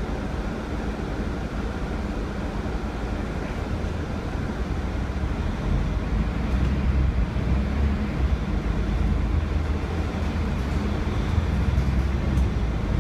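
Mercedes-Benz OC500LE city bus heard from inside the passenger saloon: its OM457hLA diesel engine and drivetrain run with a steady low rumble under road noise, growing louder about halfway through.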